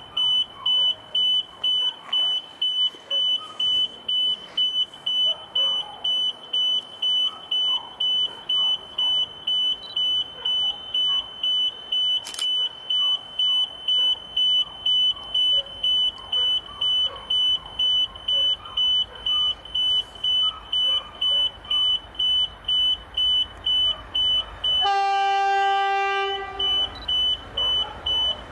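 Level-crossing warning bell beeping steadily, a high electronic ding about twice a second, as a train approaches. About 25 seconds in, the train's locomotive sounds its horn in one long blast of about a second and a half.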